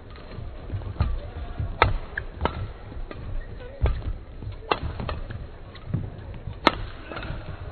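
Badminton rally: rackets strike the shuttlecock in a quick, irregular exchange of about seven sharp smacks, roughly a second apart. Dull thuds of the players' footwork on the court come in between.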